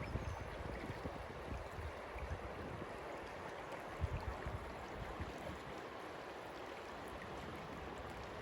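River water rushing and splashing steadily in a forest, running with the late-winter thaw. A low thump about four seconds in.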